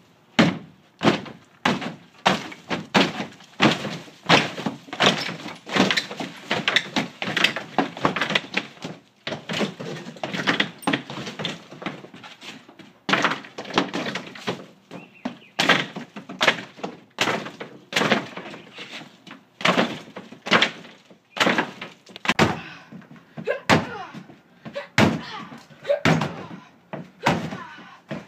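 Repeated kicks against a shed wall's sheathing between wooden studs: a steady run of thuds and cracks, about one to two a second, as the panel breaks apart.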